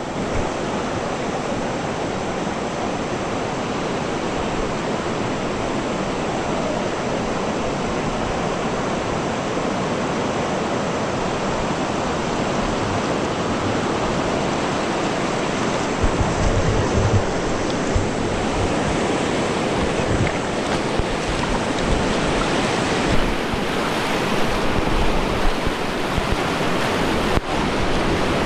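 River water rushing steadily around a raft. From about halfway through, low rumbles of wind buffet the microphone.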